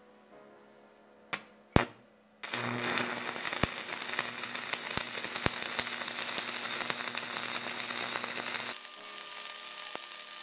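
Stick welding with a 4 mm electrode on a SEDA MIG-200MDP multi-process welder at its maximum output. Two sharp clicks, then about two seconds in the arc catches and runs with a steady crackling sizzle and scattered pops, thinning somewhat near the end.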